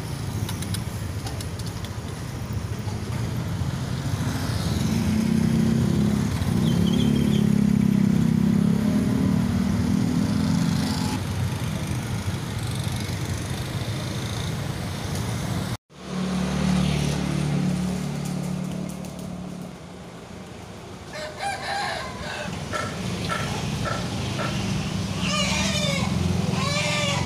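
Motorcycle and car traffic passing on a street, engines running. After a sudden break, a vehicle engine sounds close by, and near the end chickens call several times.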